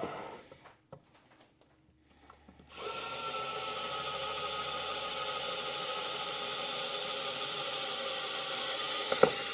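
Vessel 220USB P1 electric screwdriver, at its 400 RPM top setting, driving a 1/8-inch drill bit into plywood: the small motor runs with a steady whirr and a faint whine that drops a little as the bit cuts, starting about three seconds in. The bit goes through the wood without trouble. A couple of sharp clicks come near the end.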